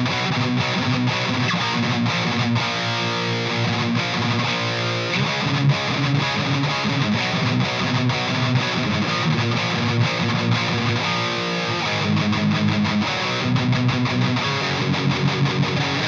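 Electric guitar played through an EVH 5150III LBX EL84 valve head on its gain channel with no overdrive pedal in front: heavily saturated distorted riffing that keeps going, turning to fast repeated picked notes about three-quarters of the way in.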